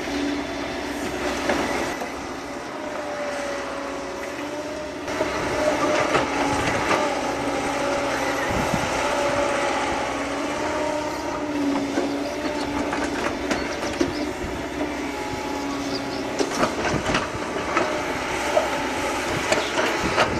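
Caterpillar M315 wheeled excavator at work: its diesel engine runs steadily under load with a whine that drifts up and down in pitch as the hydraulics move the boom and bucket. Scattered sharp clanks come from the bucket and linkage as it digs soil.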